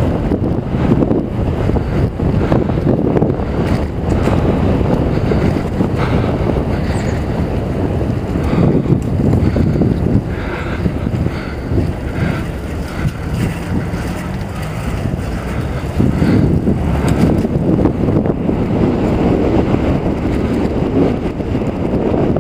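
Wind rushing over a helmet camera's microphone on a moving mountain bike, with scattered small knocks and rattles. It eases off about ten seconds in and picks up again about six seconds later.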